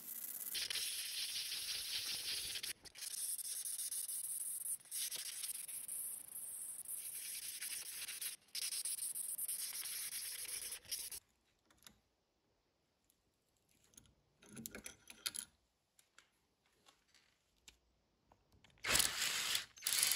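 Abrasive paper rubbed by hand along the steel blade of an antique drawknife, rasping in long strokes with brief pauses, then stopping about halfway. Near the end a drill starts boring into the wooden handle with a loud burst of noise.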